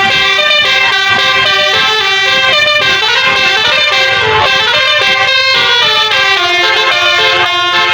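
Basuri 'telolet' musical air horn on a tour bus, playing a continuous melody. Its loud, many-toned horn notes step up and down in pitch.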